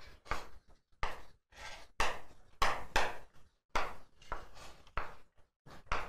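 Chalk writing on a chalkboard: a quick, irregular series of short taps and scrapes, about three strokes a second, as a word is written out stroke by stroke.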